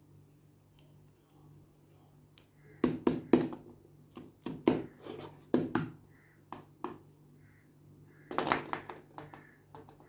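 Hands handling a plastic toy and its packaging: clusters of sharp taps, clicks and knocks, loudest about three seconds in and again near the end.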